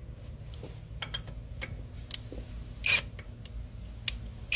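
Scattered light clicks and two short metallic clatters from handling a cordless impact wrench and fitting its socket onto a car wheel's lug nut, with the louder clatter near the end.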